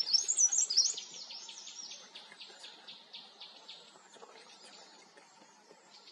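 A bird calling: a burst of loud, high, sliding notes in the first second, then a fast run of short high notes that fades away over the next few seconds.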